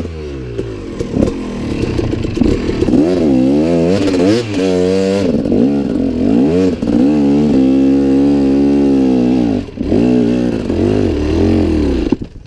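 Dirt bike engine under load on a steep hill climb, revving up and down repeatedly as the throttle is worked. It holds high revs for about two seconds past the middle, dips sharply, then revs again before dropping off near the end.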